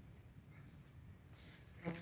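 Faint background for most of it, then near the end a dog running through dry grass close by, a brushing rustle with a short voice-like sound just before the end.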